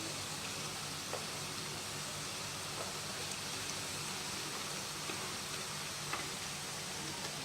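Breadfruit slices deep-frying in hot oil: a steady sizzle with a few faint pops.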